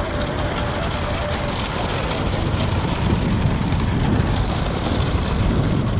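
Motor vehicle engines running amid steady road noise, a little louder about halfway through.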